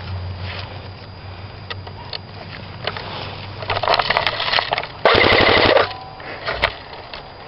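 Airsoft guns firing: scattered single shots, a rapid burst about four seconds in, then a loud fully automatic burst just after five seconds lasting under a second, and a last single shot near the end.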